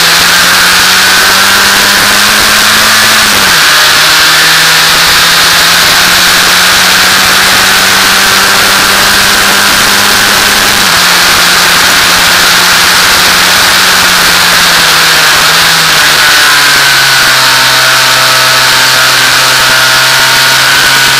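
Formula F2000 race car's engine heard from the open cockpit, running hard at steady revs held down to about 5000 rpm by an electrical glitch. Its note drops in pitch in steps three times, about three, eleven and sixteen seconds in, over a constant rush of wind.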